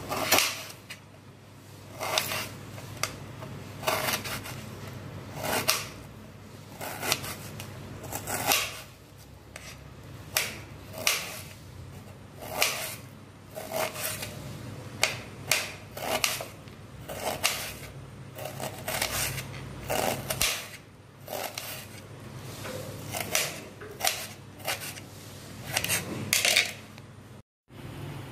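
Kitchen knife chopping a red onion on a plate: the blade knocks on the plate in sharp, irregular clicks about once a second, with some scraping between them.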